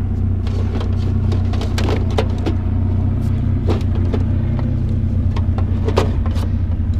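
Vehicle engine running steadily at idle, with scattered sharp clicks and knocks over it.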